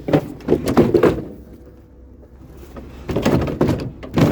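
Clunks and knocks of a heavy scavenged item being handled as its loose top is worked back on: a run of knocks in the first second, a quieter pause, then more clattering near the end.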